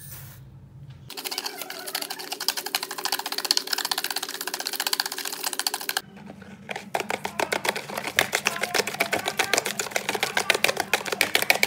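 Hand whisk beating egg yolks and sugar in a plastic bowl: a rapid, steady ticking of the wires against the bowl, starting about a second in, pausing briefly about halfway and then resuming louder.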